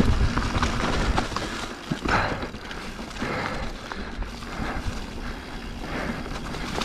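Radon Jab enduro mountain bike rolling downhill over a dirt trail strewn with dry leaves: tyre noise and scattered knocks and rattles of the bike over bumps, with wind rumbling on the microphone. Louder over the first two seconds.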